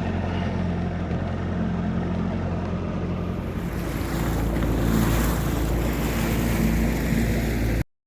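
Boat motor running steadily with wind and water noise over it. About halfway through its note shifts and the wind and water hiss grows, then everything cuts off suddenly just before the end.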